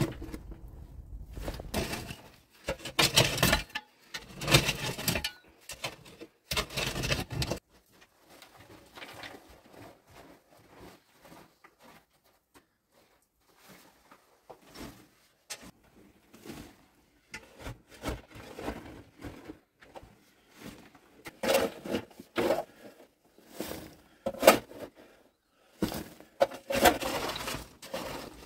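Rocks knocking and scraping as stones are shifted by hand and loose rocky rubble is dug with a long-handled digging tool, in irregular clusters of clunks and gritty scrapes. The clusters are loudest at the start and again in the last seven seconds, with quieter scattered knocks in between.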